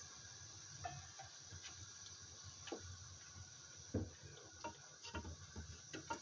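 Fish frying in a pot of hot oil with a faint steady sizzle. A wooden spatula and a slotted spoon click and knock irregularly against the pot and the fish pieces, the sharpest knock about four seconds in and several more near the end.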